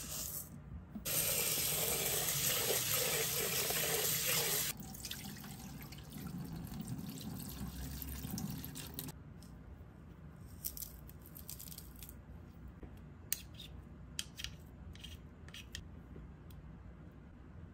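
Tap water runs hard into a rice cooker's inner pot for a few seconds, then the rice is rinsed and the cloudy rinse water is poured off into a stainless steel sink. After that come a few light clicks of utensils.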